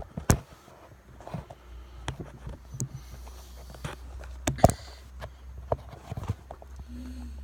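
Handling sounds of a sheet of glass-fibre matting being cut and moved about: scattered light clicks and knocks, the loudest about four and a half seconds in, over a low steady hum.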